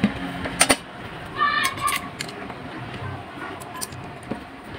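Sharp metal clicks and clinks as an electric fan motor's pressed-steel end cover and shaft are handled, two close together just under a second in and a few more later. A short high-pitched cry-like tone sounds about a second and a half in.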